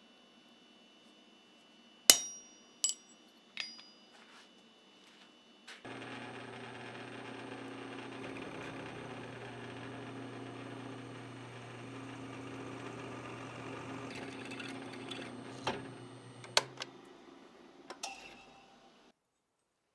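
Three ringing metal-on-metal strikes. About six seconds in, an electric power tool starts and runs steadily with a low hum and a faint high whine for about ten seconds. It stops with a couple of clanks and a few light knocks.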